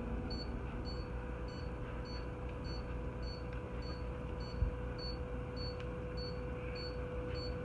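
Anesthesia patient monitor giving short high pulse beeps, a little under two a second, over a steady electrical hum. There is a single soft knock about four and a half seconds in.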